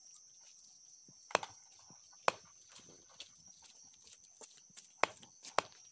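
A knife chopping raw meat on a wooden log chopping block: about eight sharp, irregular chops, the loudest two in the first half.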